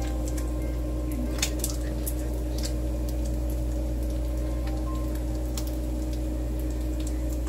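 Steady low hum with two faint steady higher tones under it, and a few light clicks and ticks scattered through.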